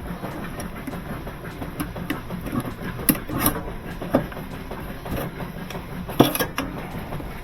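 Scattered sharp clinks and knocks of hands-on work on a washing machine, over a steady low hum.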